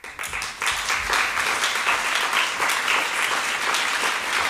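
Lecture audience applauding. The clapping swells within the first second and then stays steady.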